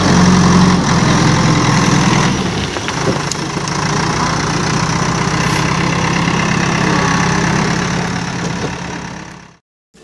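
Diesel engine of a JCB backhoe loader running steadily as the machine works its front loader bucket, with a low, even engine note. The sound fades out shortly before the end.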